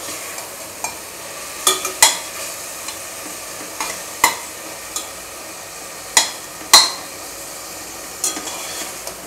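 Onion-tomato masala sizzling as it fries in a metal pressure cooker, stirred with a steel ladle. The ladle clinks against the pot's sides about a dozen times, the loudest two close together about six to seven seconds in.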